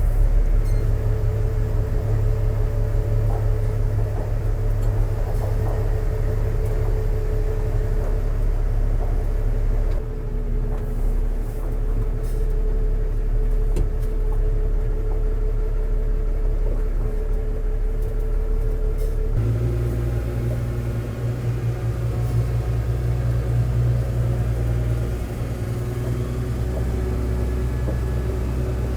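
New Holland TS135A tractor's diesel engine running steadily. Its note shifts about two-thirds of the way through as it moves off towing the timber trailer.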